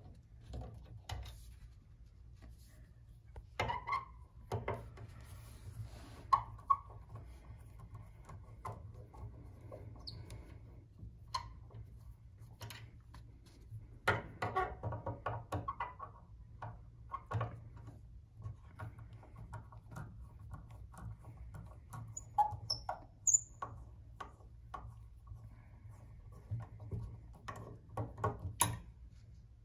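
Screwdriver turning out the screws of a Steinway piano's brass pedal plate: scattered small clicks of the blade and metal screws, with short scrapes as the screws turn, in a few busier bursts.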